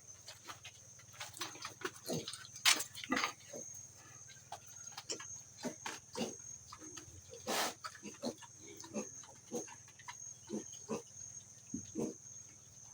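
Pigs grunting in their pen, in short, irregular sounds, with a few louder sharp ones. A steady high-pitched tone runs underneath.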